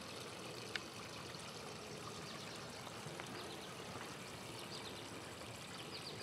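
Faint steady trickle of water from a garden pond, with a few faint high chirps in the second half.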